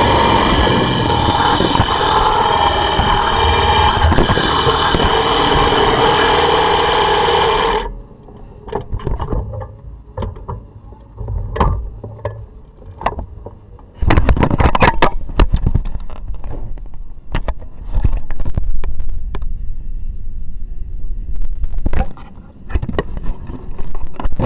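Honda VFR400's V4 engine running steadily while the bike rolls, stopping abruptly about eight seconds in. After that come irregular knocks, bumps and rubbing from the onboard camera being handled.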